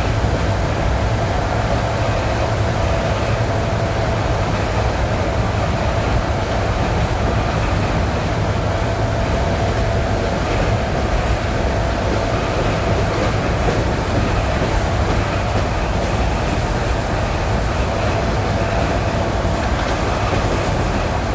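ED9E electric multiple unit running steadily, heard from on board: a continuous rolling rumble with a steady whine above it.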